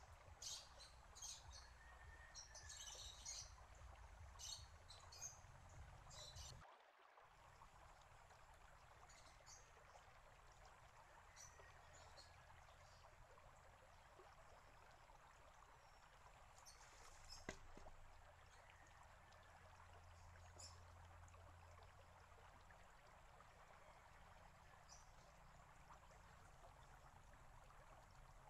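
Faint trickle and bubble of water from a small fountain welling up in a stone basin, with birds chirping, most often in the first few seconds. About two-thirds of the way through comes a single sharp knock: the bamboo rocker arm of the shishi-odoshi falling back against its rock.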